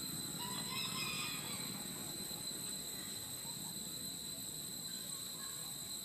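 Forest ambience: a steady, high-pitched insect drone, with a few short chirps about a second in.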